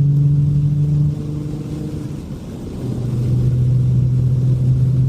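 A car engine running with a steady low drone; it drops away about a second in and comes back strongly near the three-second mark.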